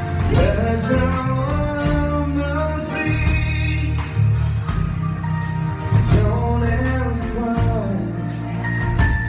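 A man singing live into a microphone over music with a deep bass line and a steady beat, his voice sliding up and down through held notes.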